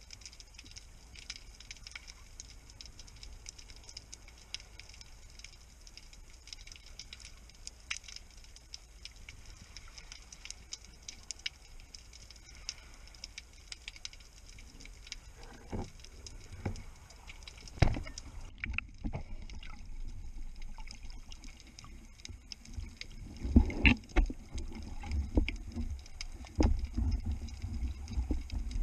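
Underwater ambience heard through a submerged camera: an even background crackle of faint sharp clicks. About three-quarters of the way in, loud low thumps and rushing, bubbling water take over as the diver swims up near the surface.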